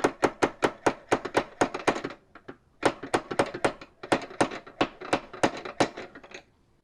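Rapid hammer blows on a ratchet wrench used as a drift, knocking the old steering-head ball race (knuckle bearing) out of a Yamaha R15 v3's frame, worked around the race so it loosens evenly. About four or five sharp metal strikes a second, in two runs with a short pause between them.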